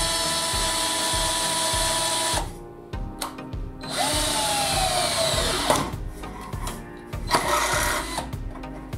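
Black+Decker BCD003C2K 18V cordless drill running, its motor whine rising and then holding steady for about two and a half seconds, stopping, then starting again and sinking in pitch as the twist bit bores into a steel rail, with a sharp click partway through and a shorter burst near the end. Background music with a steady beat plays underneath.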